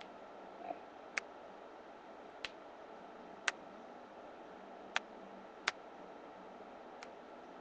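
Thumb knuckles being cracked: six sharp pops, irregularly spaced about a second apart, over a faint steady hiss.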